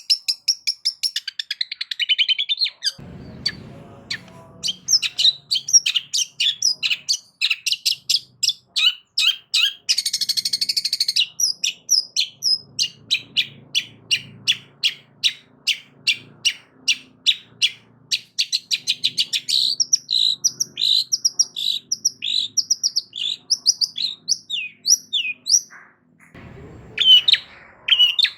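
Long-tailed shrike (cendet) singing a fast, varied stream of short chirps and trills, mixing in notes mimicked from other birds, with one harsh rasping note about ten seconds in.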